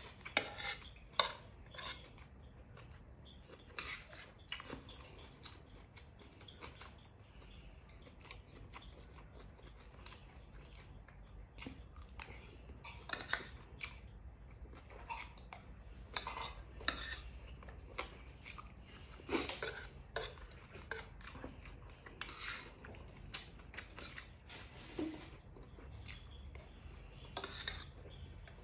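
Cutlery clinking and scraping against a plate at irregular moments, with chewing and crunching of food in between.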